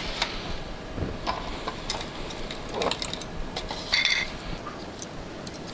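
Hands handling wiring: scattered light clicks and taps as wire connectors and a dark plastic wall panel are moved about, with a short squeak about four seconds in.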